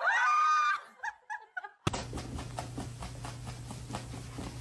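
A woman's high, squealing laugh that rises in pitch and breaks off under a second in, followed by a few short laughs. After that comes a quieter steady low hum with faint scattered clicks.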